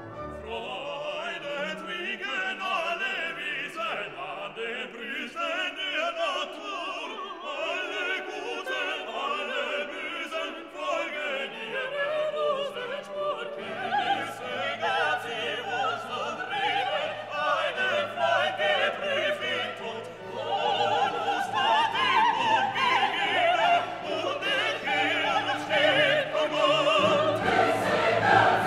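Background classical music with singing voices, growing fuller and louder about two-thirds of the way through.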